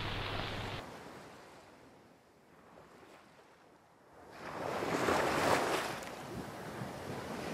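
Ocean waves: a rush of surf fades away at the start, and after a few seconds of silence another wave swells in and slowly ebbs.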